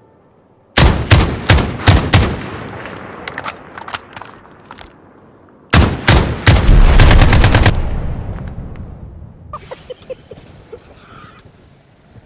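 Two bursts of rapid, sharp bangs like gunfire, about five seconds apart, each fading away into a rumble over a few seconds.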